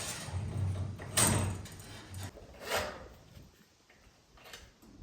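Garage door hardware being handled: several separate metal knocks and rattles, with a low rumble in the first couple of seconds, as the safety cable is fitted.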